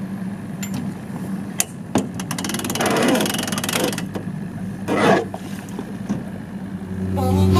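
An engine idling steadily, with a few sharp metallic clicks and a fast rattle of metal about two to four seconds in, as gear at the boat's bow is handled. Music comes in near the end.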